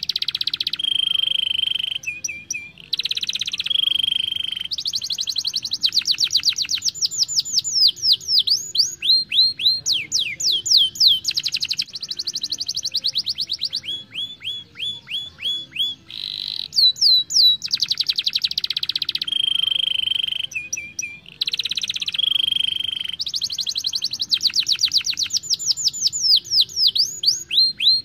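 Canary singing a fast, continuous song of rolling trills: rapid runs of downward-sweeping notes and buzzy held notes, broken by brief pauses. The same sequence of phrases comes round again about halfway through.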